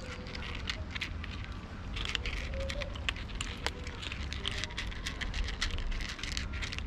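A cat and kittens eating from a plate close to the microphone: a fast, irregular crackle of small chewing and lapping clicks, over a low steady rumble.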